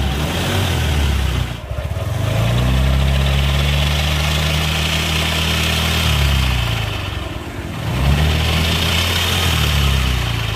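Suzuki Nex scooter engine revved three times, dropping back between blips, the middle rev held about four seconds. Under throttle the CVT gives a rough growl ('ngorok'), the fault being shown; at idle the engine runs smooth.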